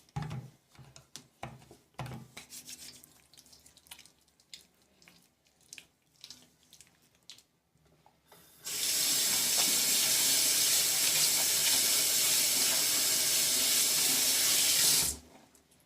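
Faint scattered knocks and handling sounds, then a water tap running full into a sink for about six seconds while hands are washed, before it is shut off abruptly.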